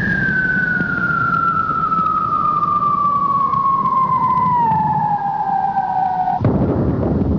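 A single clear tone sliding slowly down in pitch over a rushing, rumbling noise, cutting off suddenly about six and a half seconds in as a louder rushing noise takes over.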